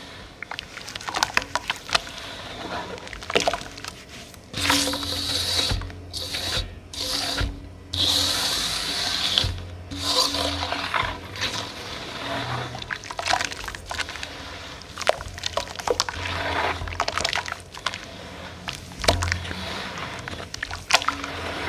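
Hands squeezing and swishing a sandy mud slurry in a water-filled metal basin: wet squelches, small splashes and sloshing, with louder stretches of swishing about a third of the way in.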